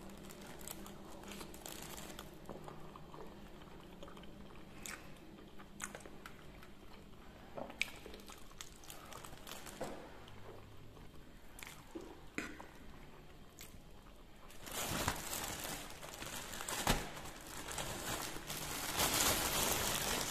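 Fried instant noodles being eaten: faint chewing and slurping with a few sharp clicks, likely cutlery on the plate. About fifteen seconds in, a plastic bag starts rustling loudly as a hand reaches into it.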